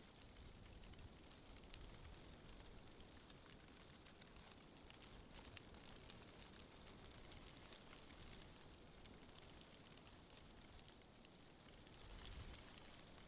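Faint, steady wind ambience with scattered light ticks and crackles, swelling slightly near the end.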